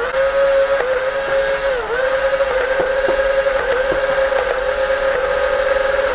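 Electric motor of a ZHENDUO Uzi foam-dart blaster whining steadily as it fires Quick Darts on full auto, its pitch dipping briefly three or four times, with faint clicks.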